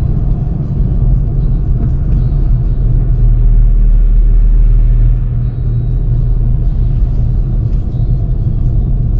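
Toyota FJ Cruiser driving on the road, heard as a steady low rumble of engine and road noise that swells slightly a few seconds in and eases off about halfway through.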